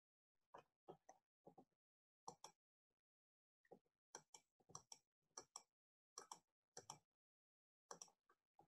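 Near silence broken by faint, irregular clicks, about twenty of them and often in quick pairs.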